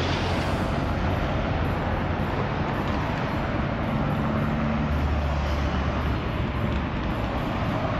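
Busy city street traffic: car and bus engines running and passing in a steady low rumble.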